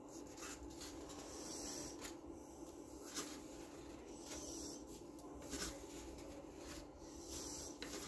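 Paper pages of a coloring book being handled and turned: a series of soft, short rustles and brushes, about seven over the stretch, over a faint steady hum.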